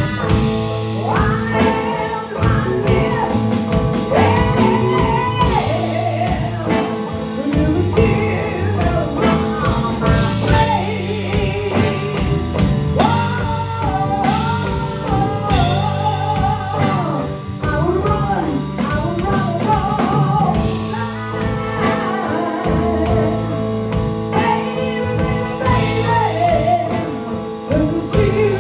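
A live band plays a blues ballad: a woman sings with wide, wavering held notes over electric guitar, electric bass, keyboards and a drum kit.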